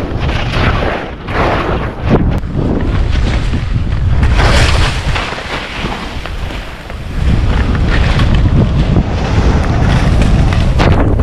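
Wind buffeting the microphone of a skier's camera during a fast descent, with Faction skis hissing and scraping through soft snow. The rush swells and eases several times with the turns.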